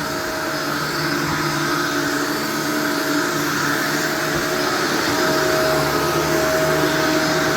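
Shark Vertex upright vacuum cleaner running steadily while being pushed over carpet, a constant motor hum and whine.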